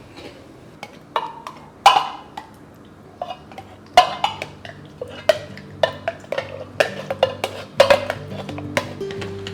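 Kitchen utensils clinking and knocking against bowls and dishes in a string of irregular sharp taps, some ringing briefly. Soft background music comes in underneath about four seconds in.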